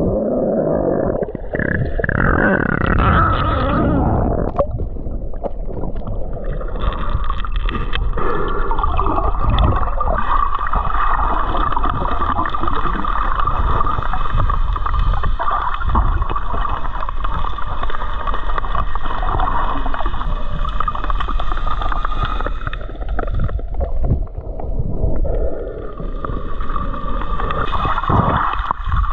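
Muffled underwater sound from a submerged camera: water rushing and bubbling as a snorkeler swims and dives. A steady hum runs under it for most of the time and drops out for a couple of seconds near the end.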